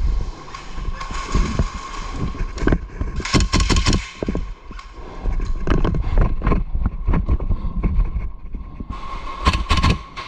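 Airsoft gas blowback guns firing: sharp cracks, some in quick runs of several shots a second, over heavy breathing through a gas mask.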